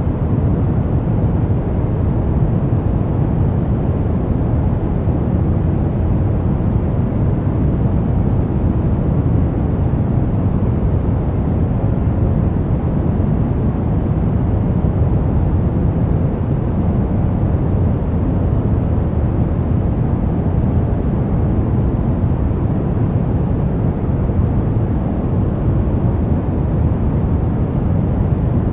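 Steady brown noise: an even, unchanging hiss weighted to the low end, like a deep rumble.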